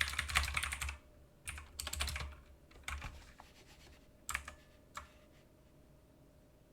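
Mechanical keyboard with clicky Cherry MX Blue switches being typed on in quick runs of keystrokes, thinning out to a couple of single key presses about four and five seconds in.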